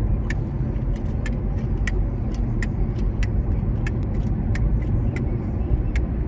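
Car driving, heard from inside the cabin: a steady low rumble of engine and road noise, with light ticks about two or three times a second.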